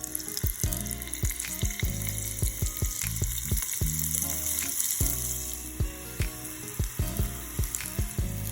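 Food sizzling as it fries in a hot pan, a steady hiss that swells in the middle, under background music with a steady beat.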